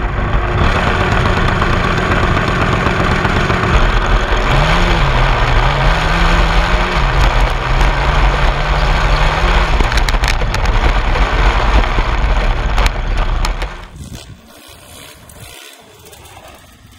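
Racing lawn mower engine running hard, with wind and ride noise from the onboard camera; the engine pitch rises and falls as the throttle changes in the middle. Near the end the sound drops much quieter.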